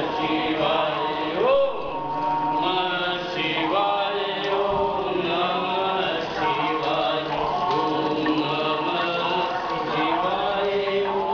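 Voices chanting a Hindu devotional mantra, a continuous sung chant with held, gliding notes.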